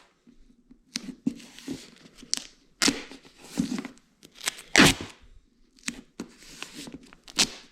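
Duct tape being pulled off the roll and torn in a series of short rips, the loudest about five seconds in.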